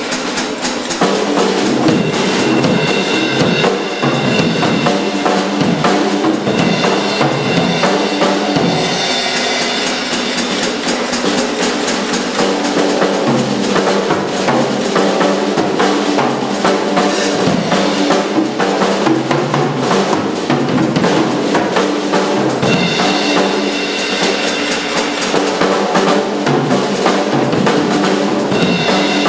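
Jazz drum kit played with sticks in a fast, busy passage across snare, toms and bass drum, with cymbals ringing out in several stretches.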